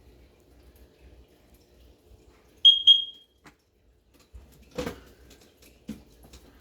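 Kidde combination smoke and carbon monoxide alarm giving two short, loud, high-pitched beeps in quick succession, followed by a couple of dull knocks.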